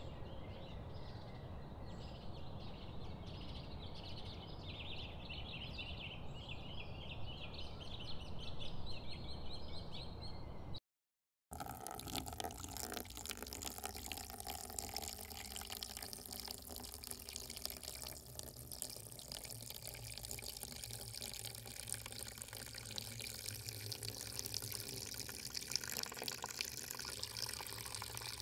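Milk pouring in a steady stream from one metal milk can into another. Before it, a stretch of birds chirping over a low steady background, broken off by a brief moment of total silence.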